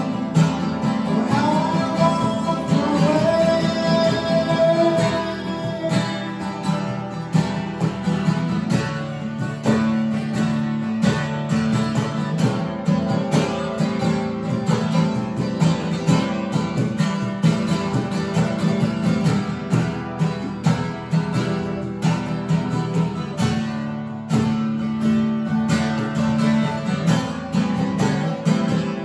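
Live acoustic duo playing an instrumental passage: a steel-string acoustic guitar strummed steadily alongside a second stringed instrument. A gliding melody line sounds over the guitar for the first few seconds.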